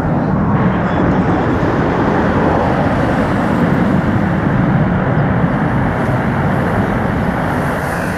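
RAF Tornado GR4 jet engines (twin RB199 turbofans) running, a loud steady noise of even intensity throughout.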